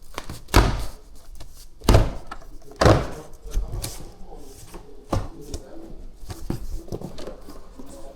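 Workshop handling noise: a run of knocks and clunks, three loud ones in the first three seconds and lighter ones after, as bike parts and tools are moved on a workbench.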